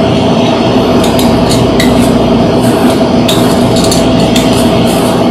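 A hand peeler scraping the skin off a green apple in short, separate strokes, over a loud steady mechanical hum with a constant low tone.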